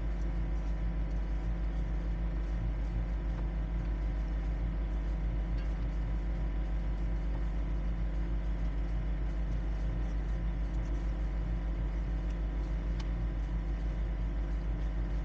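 A sailing yacht's inboard diesel engine running steadily under way, with an even, regular throb.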